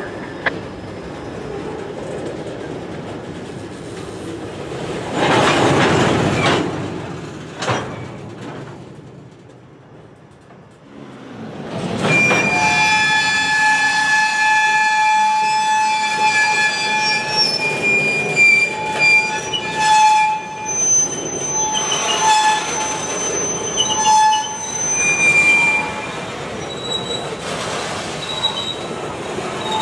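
Train rolling past with its wheels squealing: from about twelve seconds in, several steady high-pitched squeal tones ring out at once over the rumble of the cars.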